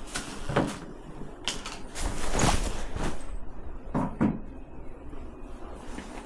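A few scattered knocks and bumps, a longer scraping noise about two seconds in, and two knocks in quick succession a little past the middle.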